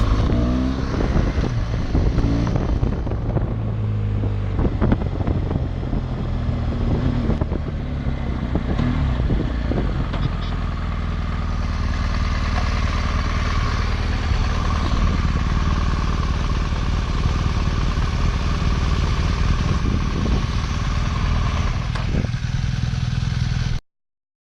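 Off-road motorcycle engine running steadily, with scattered knocks and rattles in the first half. The sound cuts off suddenly near the end.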